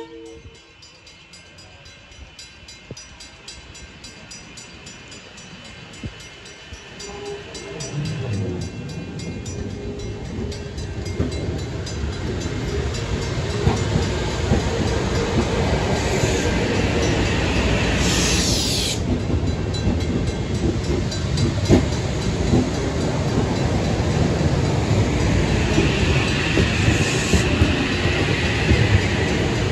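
A train approaching and running past, its low rumble building steadily from faint to loud over the first third and staying loud, with a brief high-pitched hiss a little past halfway.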